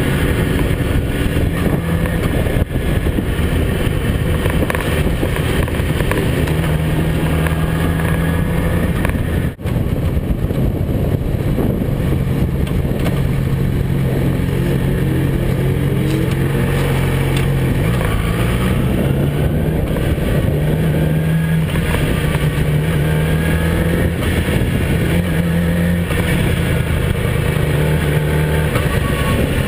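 Yamaha R6 sport bike's inline-four engine running while riding, its pitch stepping and gliding up and down with throttle and gear changes, over a steady rush of wind and road noise. The sound briefly dips about ten seconds in.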